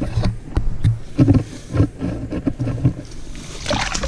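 Muffled low knocks and rumbles from handling, then water splashing in an ice-fishing hole near the end as a small lake trout is released back into it.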